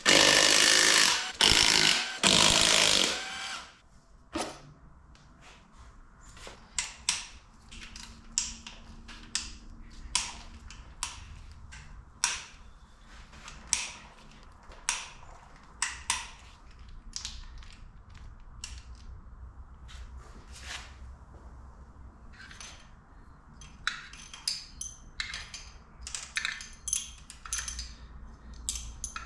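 A power tool runs in loud bursts for the first few seconds, then hand tools click and clink against metal. This is work on taking a cylinder head off an LS1 V8 engine.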